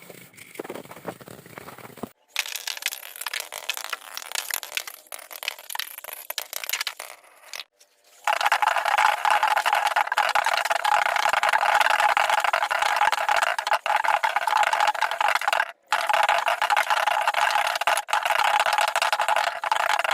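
Sped-up timelapse sound of fishing line being wound onto a spinning reel: a high, fast rattling whir. It cuts off abruptly and restarts a few times, growing louder about eight seconds in.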